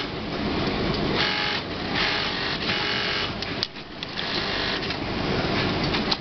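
Brother industrial sewing machine stitching a pocket onto a jacket, running in several short bursts that start and stop as the fabric is fed. A steady machine din continues underneath.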